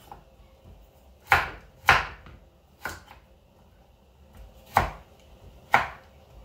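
Kitchen knife chopping carrots on a wooden cutting board: five separate sharp strikes, unevenly spaced.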